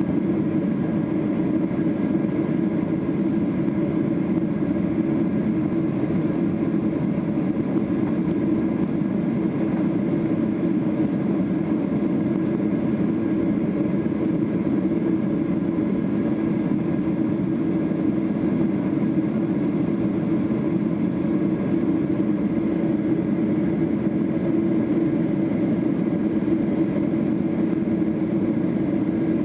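Jet airliner cabin noise during the climb after takeoff: a steady low drone of engines and airflow heard from inside the cabin, with faint steady whining tones above it.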